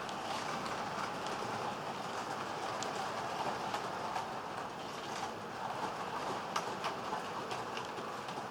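Model train running along the track: a steady whir from the locomotive's small electric motor and rolling wheels, with scattered light clicks.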